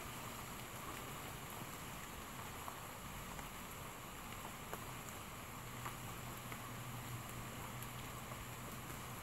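Steady outdoor background hiss, with a faint low hum coming in about halfway through and a few faint scattered ticks.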